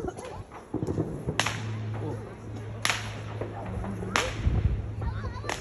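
Fireworks exploding: four sharp cracks about a second and a half apart, each trailing off in an echo.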